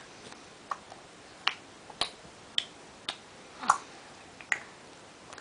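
A young child clicking her tongue against the roof of her mouth: about eight sharp, short clicks at an uneven pace, roughly one every half to three-quarters of a second.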